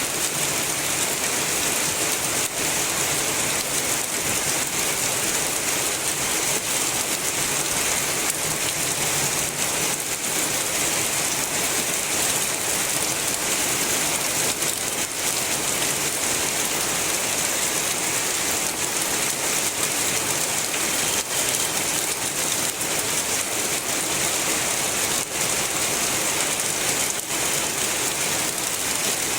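Heavy rain falling steadily: a dense, even hiss with scattered sharper ticks of single drops.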